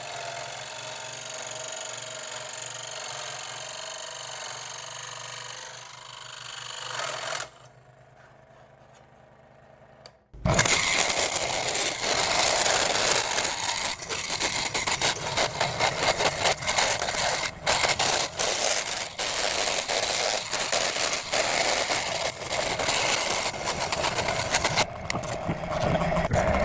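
A handheld power tool cutting into material, a loud, rough grinding and rattling from about ten seconds in. Before it, a quieter steady hiss for the first seven seconds.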